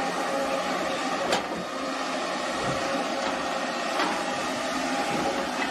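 Kobelco hydraulic crawler excavator working in a dig: engine and hydraulics running steadily with a steady whine, and two sharp knocks, one about a second in and one about four seconds in.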